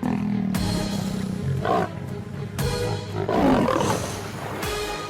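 Lions roaring in a confrontation, over dramatic background music.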